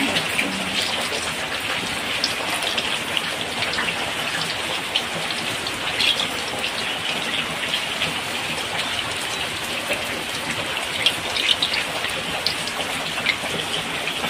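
Steady hiss with dense small crackles from gulgulas deep-frying in hot oil in a kadhai, mixed with heavy rain falling.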